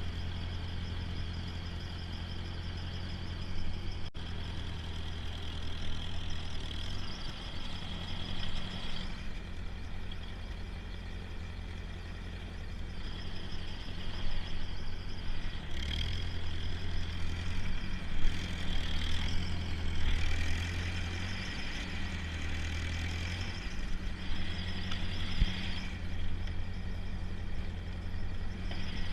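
Tractor engine running steadily, with a higher whine that grows and fades several times as it works.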